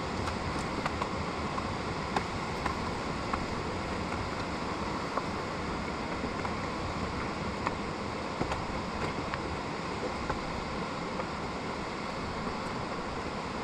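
Steady rushing noise, like wind or flowing water, with faint irregular taps of footsteps climbing concrete steps.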